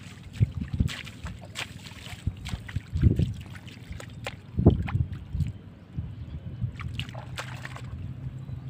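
Bare feet sloshing and squelching through shallow water over soft mud, in irregular splashes, with water stirred by hands reaching in near the end. A low, uneven wind rumble sits on the microphone.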